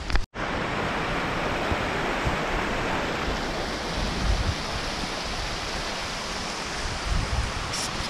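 A rocky mountain stream rushing, a steady, even noise, with some low wind buffeting on the microphone. The sound drops out for a moment just after the start.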